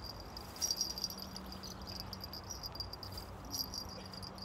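Insects chirping in short high-pitched bouts over a faint steady low hum.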